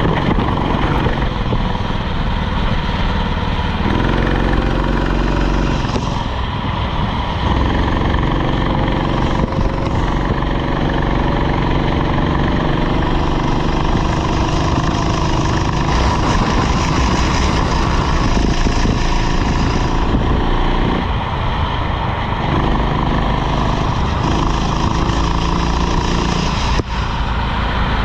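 Rental kart's small engine running hard lap after lap, its revs climbing and holding on the straights and dropping briefly a few times for corners.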